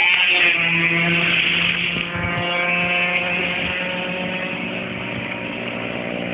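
An engine running steadily nearby, a buzzing drone with several pitches that hold nearly level, with a few low knocks about two seconds in.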